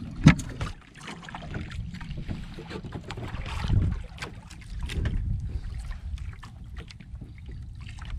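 Wind buffeting the microphone on a small outrigger fishing boat at sea, with scattered knocks and clatter of handling on the boat. A sharp knock just after the start is the loudest sound.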